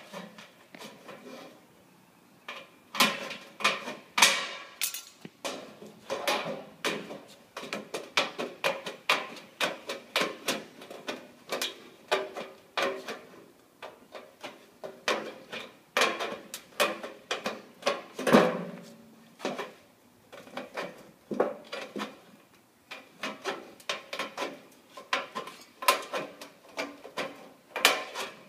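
Aviation tin snips cutting through a sheet-metal quad gutter: a string of sharp metallic snips, one or two a second, with the gutter ringing faintly behind them. There is a short pause a couple of seconds in.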